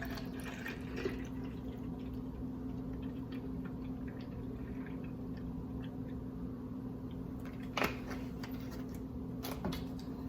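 Small clicks and knocks of kitchen items being handled, with a sharper knock about eight seconds in, over a steady low hum.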